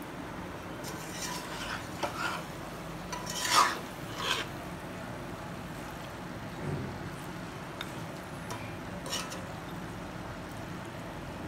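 Metal spatula stirring and scraping chunks of mutton and potato in a metal kadai, with clinks against the pan. The scrapes cluster in the first few seconds, the loudest about three and a half seconds in, and a few lighter taps follow later.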